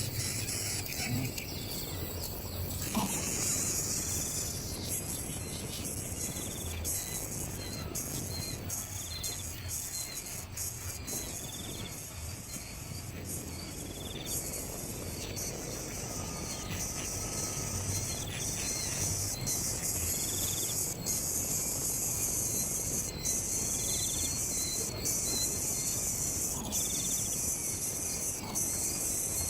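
Steady high-pitched insect chorus, with a faint short chirp repeating every couple of seconds.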